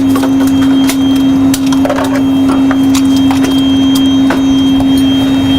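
A steady, loud humming tone in an Airbus A320 simulator cockpit, with scattered sharp clicks and knocks as the crew works switches and moves about.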